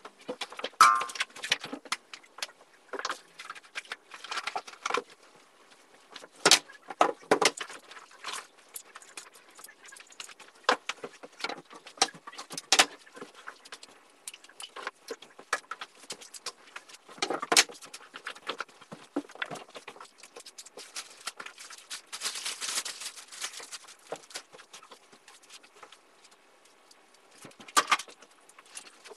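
Irregular clatter, knocks and rustling of things being picked up and set down as a bedroom floor is cleared of clothes, a box and shoes. A longer rustle comes about two-thirds of the way through.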